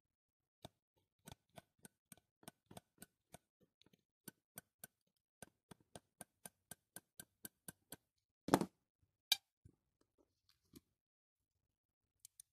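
A small metal tool clicking against the reeds of a brass harmonica reed plate during tuning: a run of light clicks, about four a second, then a single louder knock about eight and a half seconds in and a few sparse clicks after.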